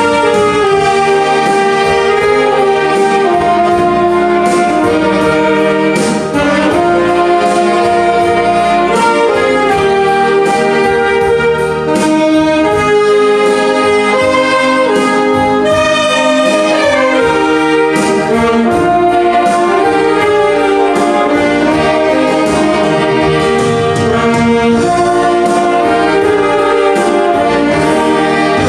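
Saxophone ensemble playing a hymn arrangement, several saxophones holding sustained notes together in harmony, moving from chord to chord.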